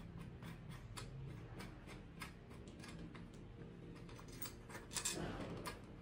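Irregular light metallic clicks from handling the bicycle's handlebar stem and tools while re-seating the stem joint. About five seconds in comes a louder brief scraping rub, the loudest moment.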